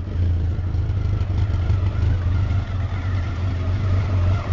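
1983 Honda Nighthawk CB650's inline-four engine idling steadily.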